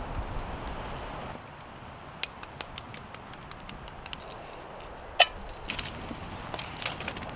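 Pine-wood campfire crackling with many short sharp pops and snaps, and one loud crack about five seconds in. Wind rumbles on the microphone in the first second or so.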